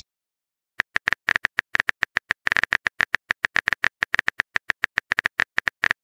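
Rapid, uneven clicks of a phone-keyboard typing sound effect, several a second, as a text message is typed out. They start about a second in.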